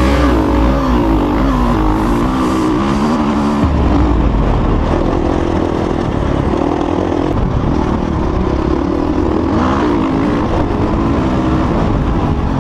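Dirt bike engine running hard under the rider, its revs rising and falling again and again through the throttle and gear changes.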